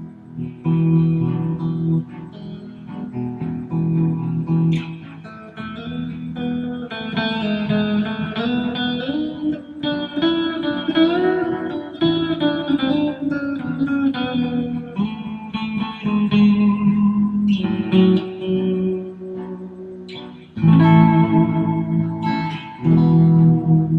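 Fender Stratocaster electric guitar played, mixing chords and single notes, with some wavering, bent notes about halfway through.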